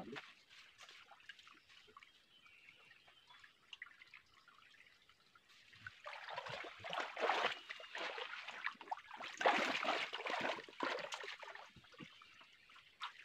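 Shallow creek water trickling faintly, then splashing and sloshing irregularly from about six seconds in as a man wades and works his hands in the water among the rocks.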